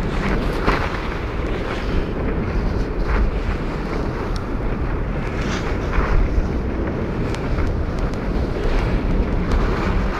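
Wind buffeting the phone's microphone during a downhill ski run, a steady low rumble, with brief hissing scrapes of skis on packed snow every second or so.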